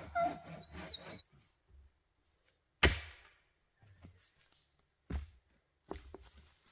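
Dry firewood being broken and handled: a loud, sharp crack about three seconds in, then another crack and a smaller one about five to six seconds in, with light rustling of sticks at the start.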